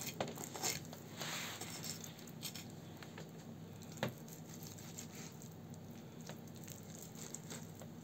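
Faint wet squishing and scraping of a knife and hands working through a raw pike's flesh and bones, with a sharp click about four seconds in.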